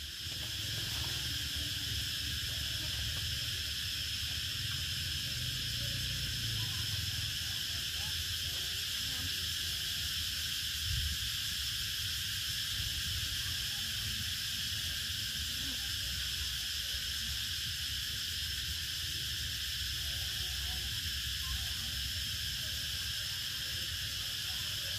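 Steady high drone of insects, with a low wind rumble on the microphone and a single soft thump about eleven seconds in.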